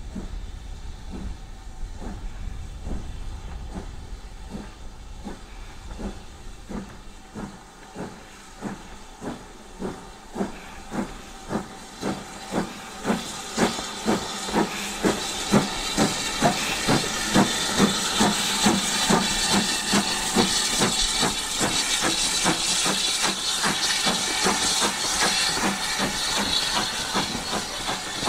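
BR Standard Class 4MT 2-6-4 tank steam locomotive working a passenger train away, its exhaust beats chuffing steadily and gradually quickening as it accelerates. The beats are loudest as the engine passes close by, and a strong hiss of steam joins them from then on.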